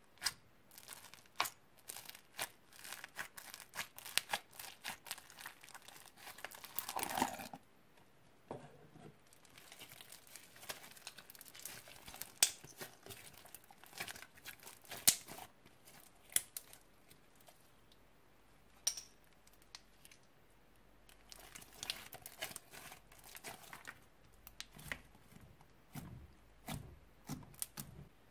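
Old slime being mixed and stretched by hand: an irregular run of sticky pops, clicks and crackles, with a denser stretch of crackling about seven seconds in.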